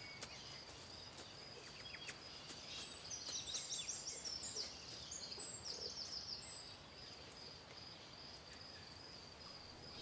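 Faint forest ambience: a steady high-pitched insect trill, with small birds giving runs of quick high chirps about three seconds in and again near six seconds.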